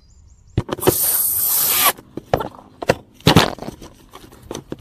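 Cordless drill driving a screw through perforated steel strapping into a wooden floor: one loud grinding run of about a second, starting just under a second in. Several sharp knocks and metallic clicks follow as the drill is set down and the strap is handled.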